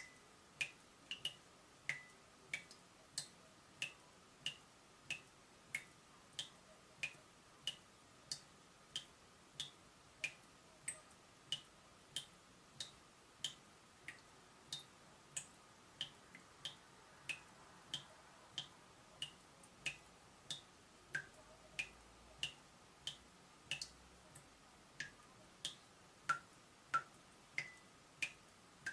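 Water dripping from a leaking tap: single drops land in an even, steady rhythm of about one and a half a second, each a short, high plink that varies a little in pitch.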